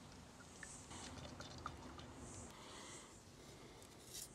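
Near silence: faint background hiss with a few light, scattered clicks.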